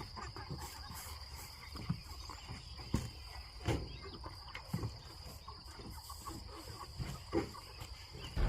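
Cornish cross meat chickens giving short, scattered clucks and calls, with a few soft knocks, over a steady high-pitched insect trill.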